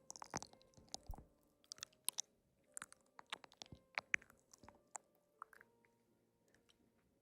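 Close-up chewing with crisp, crackly bites: quick clicks and mouth smacks for about five seconds, thinning to a few faint ones near the end.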